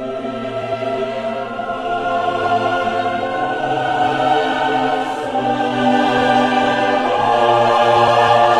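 Background music with held, choir-like chords that slowly grow louder.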